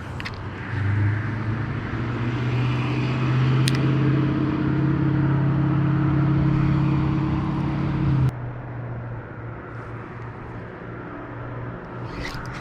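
A motor vehicle's engine running steadily, a low even hum that grows louder about a second in and cuts off abruptly about eight seconds in.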